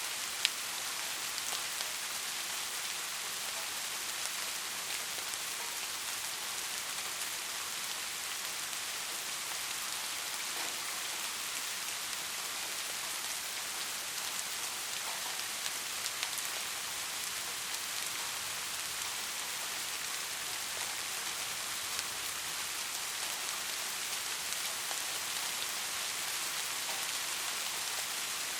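Soft rain falling in a steady, even hiss, with scattered ticks of single drops; one sharper drop tick about half a second in.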